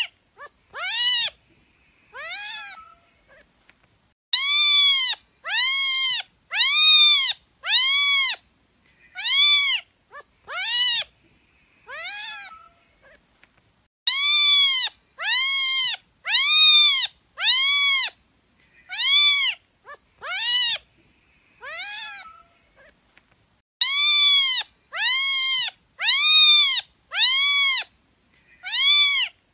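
Cat meowing over and over, about one meow a second, each a short high call that rises and falls in pitch. The meows come in three runs with brief pauses between them.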